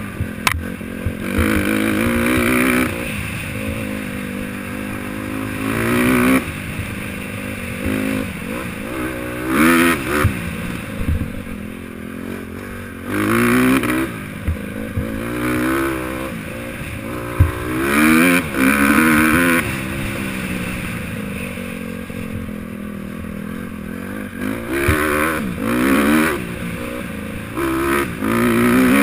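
Honda CRF150R four-stroke single-cylinder dirt bike engine being ridden hard, its pitch rising again and again as the throttle is opened in bursts every few seconds. Sharp knocks and clatter from the bike over the bumps.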